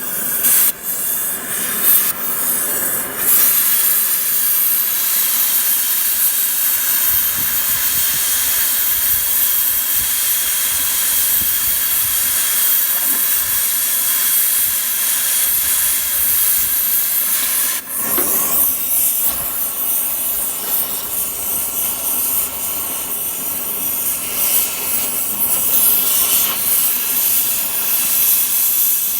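Steady loud hissing noise with faint steady tones running through it, broken briefly a few times.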